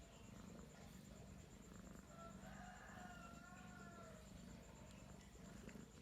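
Faint, drawn-out animal call lasting about two seconds, starting a little after two seconds in, its pitch wavering slightly and rising a little, over a low steady hum.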